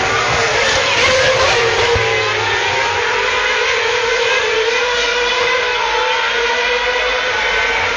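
Several V8 race car engines running at high revs together, their pitches overlapping and dipping and rising as the cars shift gear and pass.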